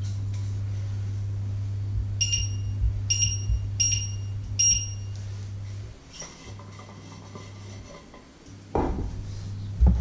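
A steady low electrical hum with four short high electronic beeps about two-thirds of a second apart, typical of a glass-top cooktop's touch controls; the hum drops away about a second after the last beep. Near the end a knock and a clatter as the steel frying pan is handled.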